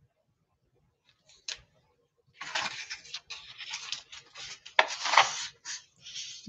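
A single click, then about four seconds of paper rustling and scraping as a page of a picture book is handled and turned.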